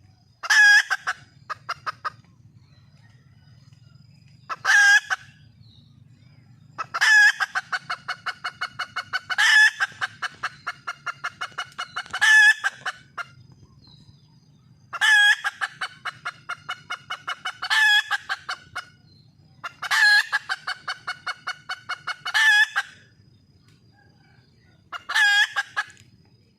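Red junglefowl hen cackling: runs of short, evenly spaced clucks, about four a second, broken every two to three seconds by a loud, higher call. This is the wild hen's call for a mate. A faint low hum sits under the gaps.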